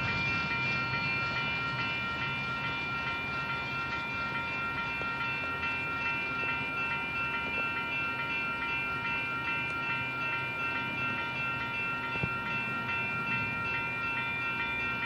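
Union Pacific double-stack intermodal freight train rolling past: a steady low rumble of the cars, with a steady high squeal of several tones held over it.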